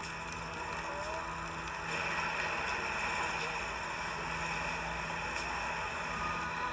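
Film soundtrack playing from a screen and picked up again by a nearby recorder: a steady hiss with a low hum, which gets louder at a scene cut about two seconds in.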